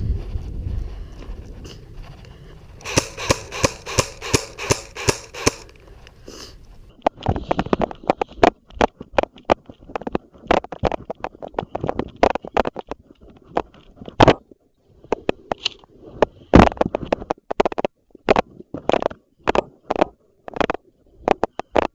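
Airsoft guns firing: a quick even run of about four pops a second, then many scattered, irregular shots.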